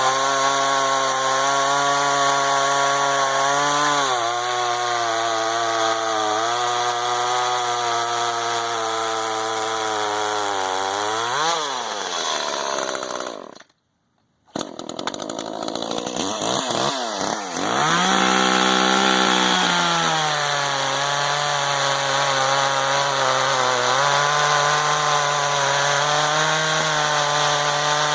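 Two-stroke chainsaw running hard through a pine log, its engine pitch sagging under load and picking up again several times. Near the middle the sound cuts out for about a second, then the saw is heard again, dipping and rising in pitch as it cuts.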